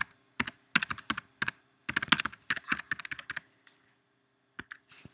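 Typing on a computer keyboard: a quick run of keystrokes for about three and a half seconds, then a short pause and a couple more keystrokes near the end.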